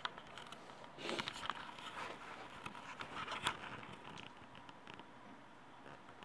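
Faint steady whir of a running desktop PC's case fans, overlaid from about a second in by irregular rustling and small clicks as the camera is carried and moved round the case, fading out again after about four and a half seconds.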